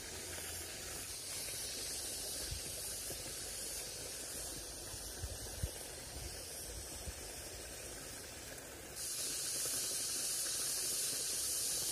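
Small waterfall of river water splashing over rocks, a steady rushing hiss that grows louder about nine seconds in, with a few faint low thuds.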